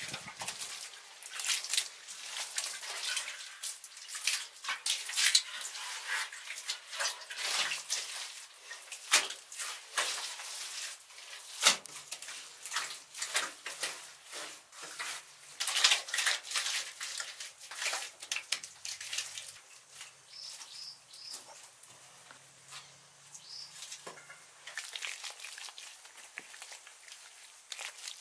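Wet mud being smoothed and worked by hand: irregular scrapes, rubs and soft wet slaps as mud plaster is spread over earth walls and ground.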